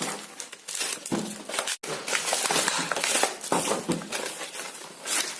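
Packaging of a hot glue gun being handled and pulled open, with irregular crinkling and rustling and a brief break about two seconds in.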